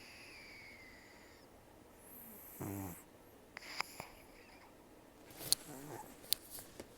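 Elderly cat snoring and breathing roughly through its nose in sleep, with a whistly wheeze early on and a louder snore about two and a half seconds in. A few sharp clicks follow in the second half.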